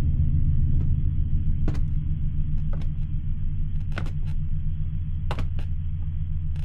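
A steady, low rumbling drone of ominous ambient sound, with faint sharp taps about once a second, like footsteps going down wooden stairs.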